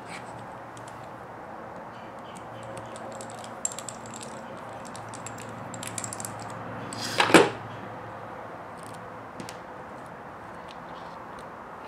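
Small clicks and rattles of RC crawler axle parts being handled on a workbench, with one louder clatter about seven seconds in.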